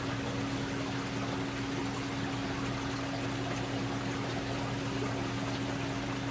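Aquarium water running and trickling steadily, over a constant low hum from the circulation pump.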